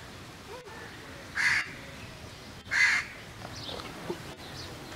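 A crow cawing twice, two short calls about a second and a half apart, followed by faint high chirps of small birds.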